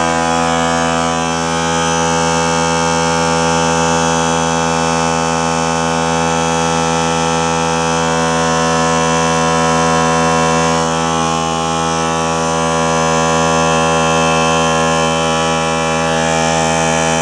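Small portable air compressor running continuously at a steady, unchanging pitch, building up tank pressure on a test run.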